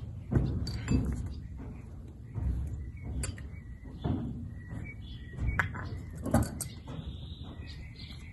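Irregular clunks and light metallic clinks of hand tools and parts being handled while getting at the oil filter under a pickup truck, about half a dozen knocks spread over several seconds.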